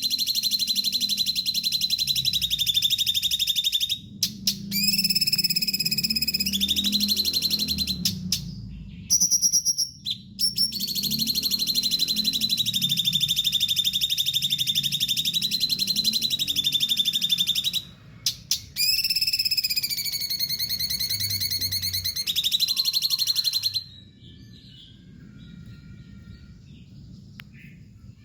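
Cucak cungkok songbird singing long runs of rapid trilling song with sliding notes, broken by short pauses. About three-quarters of the way through it drops to faint, quieter calls.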